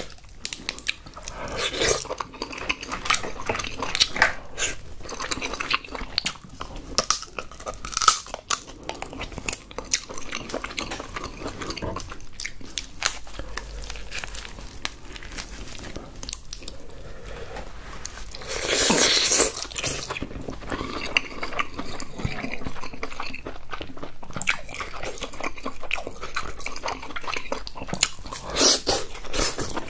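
Cooked king crab leg shells cracking and crunching as gloved hands break them open, with one louder burst a little past the middle. Near the end comes chewing of the crab meat close to the microphone.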